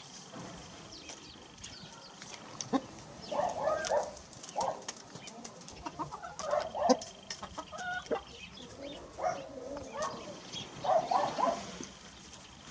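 Rooster clucking in short bursts, in about four separate groups, with a few sharp clicks in between.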